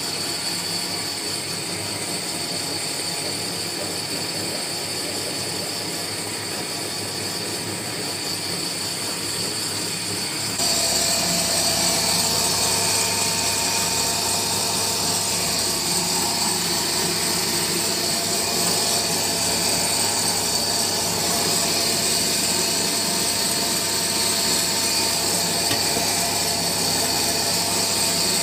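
Small electric flat-die pellet mill running under load, pressing rabbit feed mash into pellets: a steady machine drone with a constant whine. About ten seconds in it turns suddenly louder and shriller and holds there.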